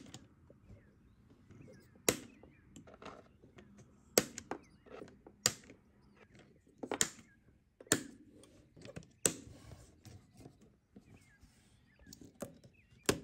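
Watercolour half pans being handled in a metal tin palette, clicking against the tin's metal clips: a sharp click every second or two, about seven in all, with faint scraping and rubbing between.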